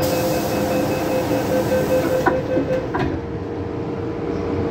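MTR M-Train door-closing warning, a rapid repeated beeping with a hiss under it, ending as the sliding doors shut with two sharp knocks a little over two and three seconds in; a steady hum of the standing train goes on afterwards.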